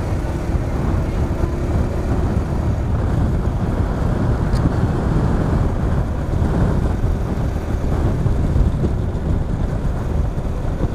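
Wind buffeting the microphone over the steady low rumble of a vehicle moving fast along a road.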